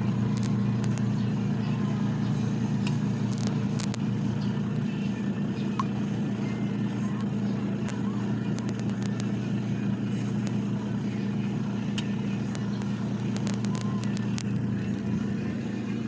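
Mini portable washing machine's spin-dryer running: a steady motor hum as the plastic basket spins, with a few light clicks.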